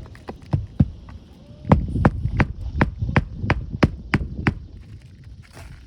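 Hammer driving roofing nails back into 3-tab asphalt shingles: three light taps, then about nine harder strikes at roughly three a second.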